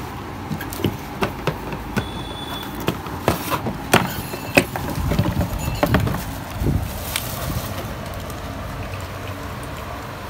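Large Pioneer Fairy XD spinning reel being handled: irregular clicks and knocks for the first several seconds, then only a steady low background rumble.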